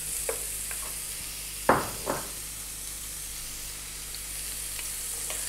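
Chopped onion sizzling in olive oil in a frying pan on a heat just below medium, a steady high hiss, with two short knocks about two seconds in.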